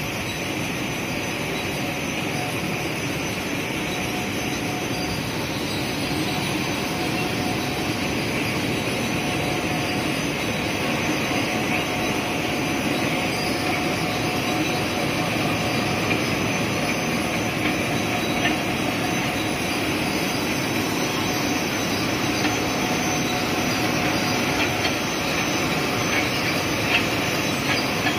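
Servo-driven six-colour rotogravure printing machine running with plastic film: a steady mechanical whir of its rollers and drives, with a faint steady hum and a few light ticks near the end.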